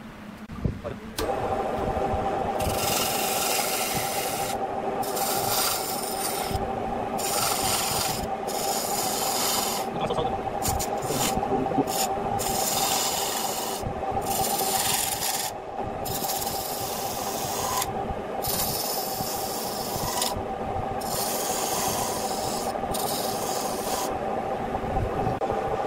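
Turning chisel cutting into a spinning wooden vase on a wood lathe: a loud, steady scraping with a hiss that swells and drops in stretches of about a second as the tool bites and eases off. The cutting starts about a second in, over the lathe's running hum.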